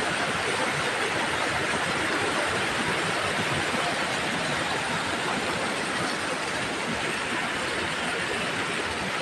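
Waterfall pouring over rock ledges into a pool: a steady rush and splash of falling water.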